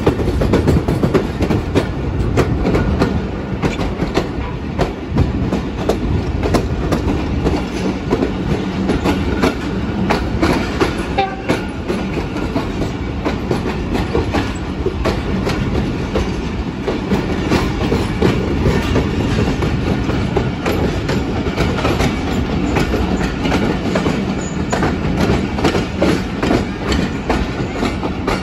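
Passenger coach wheels running over the track, a steady heavy rumble with rapid, irregular clacks, heard from the coach's open doorway.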